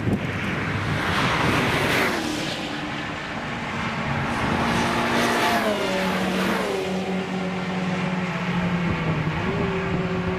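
A car driven fast on a race track passes close by. Its engine note builds and then drops in pitch as it goes past, with an engine tone carrying on afterwards and a rushing noise in the first couple of seconds.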